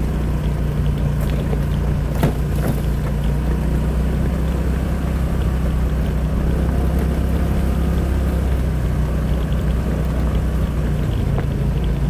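Honda PCX scooter's single-cylinder four-stroke engine running steadily under way, with a brief knock about two seconds in.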